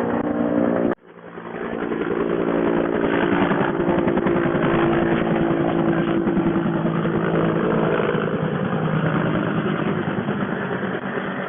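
An engine running steadily, cut off abruptly about a second in, then coming back and running on at a steady pitch.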